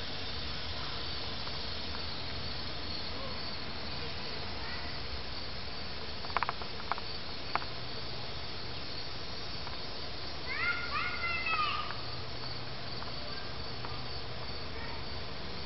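Outdoor ambience of insects buzzing steadily. A few sharp clicks come about six to seven and a half seconds in, and a short run of bird chirps comes about eleven seconds in.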